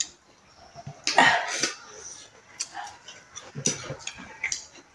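Sounds of eating rice and curry by hand at the table: small clicks and mouth noises. A loud, short, breathy burst comes about a second in, and a smaller one near the end.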